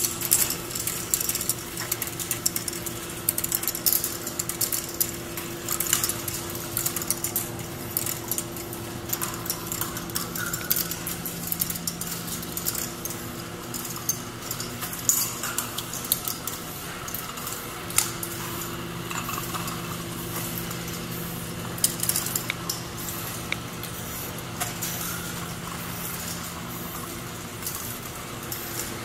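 A giant K'NEX ball machine running: plastic balls clicking and clattering along the plastic tracks and through the lifts in a steady, irregular patter, over a steady low hum that drops away for several seconds midway.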